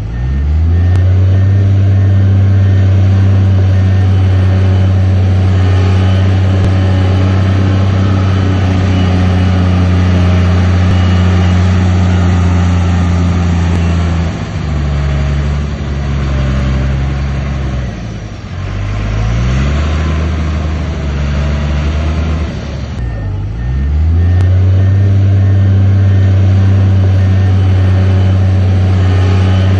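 Heavy diesel engine of an earthmoving machine running with a steady deep drone. About halfway through, its pitch drops and swings up and down a few times, then it settles back to the steady drone.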